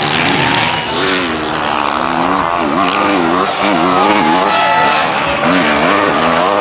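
Motocross bikes' four-stroke engines revving hard, the pitch climbing and dropping again and again as the riders work the throttle and shift through corners and jumps.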